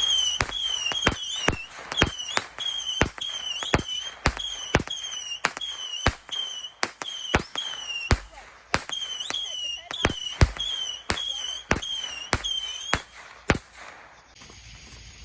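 A consumer firework firing a rapid string of shots, each a sharp crack with a short, high, wavering whistle, about two a second, stopping about a second and a half before the end.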